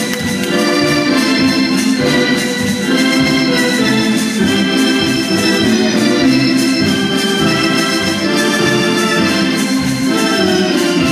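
Organ music playing steadily, sustained chords shifting every second or so.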